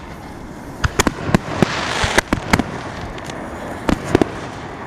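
Excalibur aerial firework shells firing and bursting: a rapid, uneven run of sharp bangs in clusters, about a dozen in all. A crackling hiss swells between about one and two and a half seconds in.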